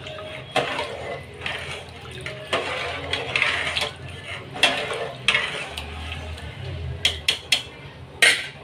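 Metal spoon scraping and clattering in a large metal pot as rice is added to chicken broth and stirred in, with the liquid sloshing. There are several sharp clinks of the spoon on metal near the end.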